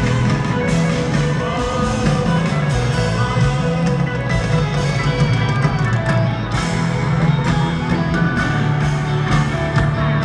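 Rock band playing live, recorded from the seats of an arena: electric guitar over bass and drum kit, continuous and loud.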